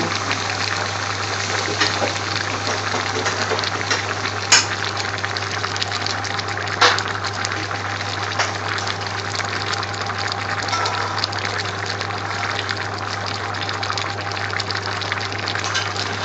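A large pot of onion, carrot and pepper base gravy boiling hard, a steady bubbling hiss with a constant low hum underneath. Two sharp pops stand out, about four and a half and seven seconds in.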